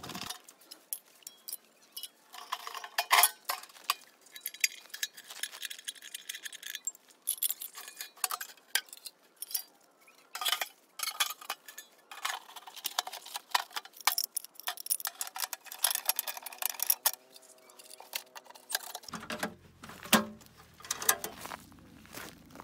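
Black-painted steel parts of a homemade ammo-can rocket stove knocking and clinking against each other as the stove is taken apart, an irregular run of sharp metallic taps and clanks.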